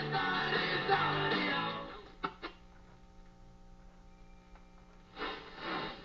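Broadcast music with guitar and singing coming from a restored Crosley 718-B tube radio's loudspeaker, ending about two seconds in. A couple of clicks and a faint steady hum follow, then a brief burst of sound near the end.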